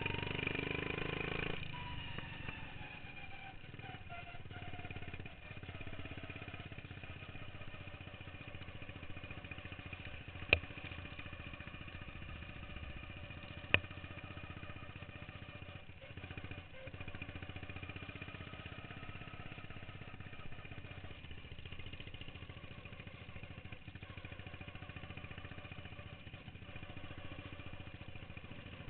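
Racing lawn mower engine backing off from high revs about a second and a half in, its pitch falling, then running steadily at lower speed. Two sharp clicks come partway through.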